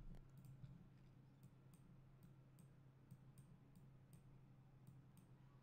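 Near silence: a low steady hum of room tone with faint, evenly spaced clicks, about three a second.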